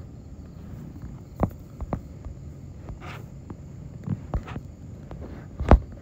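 Irregular light knocks and taps, about half a dozen, with a louder thump near the end, over a low steady hum.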